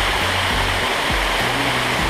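Small waterfall splashing steadily down rock into a pool, with background music's low bass notes changing about every half second underneath.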